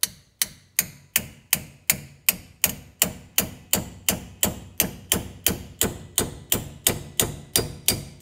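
Hammer striking a rust-seized rear brake rotor over and over, soaked in WD-40, to break it loose from the hub. The metal blows fall in a steady rhythm of nearly three a second, each with a short ring.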